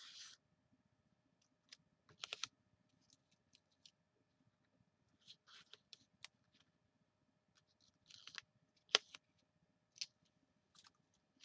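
Paper and double-sided tape being handled: scattered light clicks and brief, faint rustles as pieces are peeled and pressed down.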